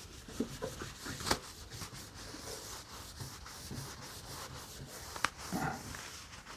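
A cloth rubbing over a chrome truck grille as it is wiped down with window cleaner, in a steady run of rubbing strokes. Two sharp clicks or knocks come through, about a second in and just past five seconds.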